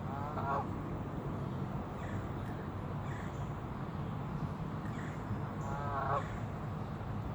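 Geese honking: two short honks, one at the start and another about six seconds in, over a steady low rumble.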